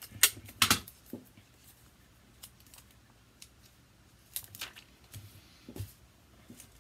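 Scissors cutting paper: two sharp snips in the first second, then a quiet stretch and a few lighter snips and clicks between about four and six seconds in.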